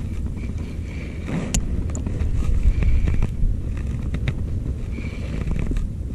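Strong wind buffeting the microphone as a steady low rumble, with a couple of sharp clicks.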